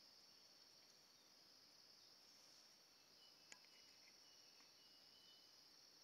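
Faint, steady, high-pitched insect chorus of forest crickets or cicadas, with a single sharp click about three and a half seconds in.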